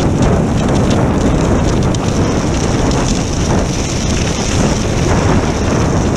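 Wind buffeting the action camera's microphone as a skier glides downhill, with a steady hiss of skis sliding over snow.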